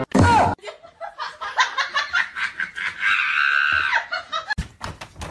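A person laughing in quick short bursts, rising to a higher held laugh about three seconds in. A few sharp clicks come near the end.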